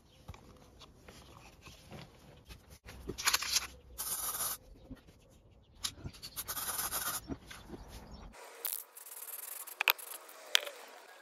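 Aerosol spray paint can hissing in several short bursts, spraying paint. A couple of sharp clicks follow near the end.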